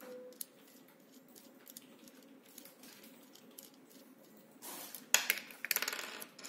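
Small metal parts handled at the nose of a rotary tool: light scattered clicks, then about five seconds in a rapid rasping rattle lasting about a second and a half, as a small nut is worked off the spindle threads.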